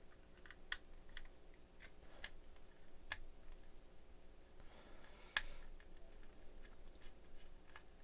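Small screwdriver taking screws out of a plastic shutter-release remote case: faint, scattered clicks and ticks, with a brief scrape about four and a half seconds in.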